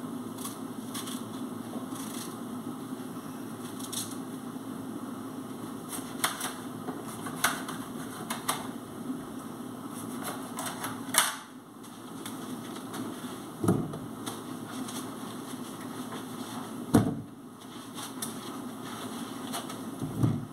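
Food preparation at a kitchen counter: scattered light clicks and taps of a knife and hands working a cucumber, then three dull thuds in the second half, over a steady low hum.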